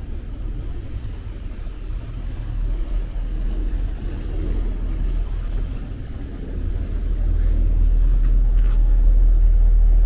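Low rumble of a glass-roofed canal tour boat's engine as the boat passes close along the canal, growing louder in the second half.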